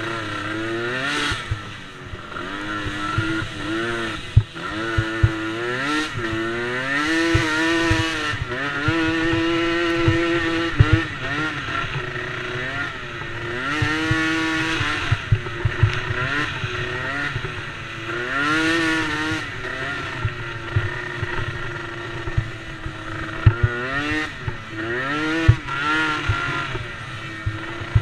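Engines of several small youth racing quads, among them a DRR DRX90, revving up and down again and again as they accelerate and back off, more than one engine heard at once. Frequent short low knocks run under them.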